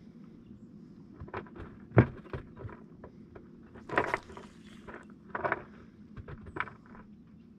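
Handling noise from a baitcasting rod and reel being worked in a small boat: a series of irregular knocks and rustles, the sharpest about two seconds in, over a low steady hum.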